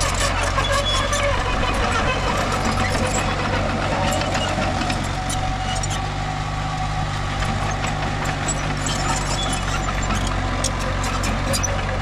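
Mini bulldozer engine running steadily, with frequent sharp clicks over it.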